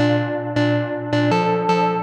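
Moog semi-modular synthesizers playing a sequenced pattern of plucky bass-and-lead notes, about two a second, each starting bright and quickly dulling as the filter closes. The pattern steps up in pitch about one and a half seconds in.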